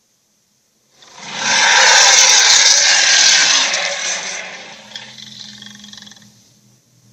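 A Chinese dragon roar sound effect: a loud, breathy roar swells up about a second in, holds for a few seconds, then fades away with a low hum underneath.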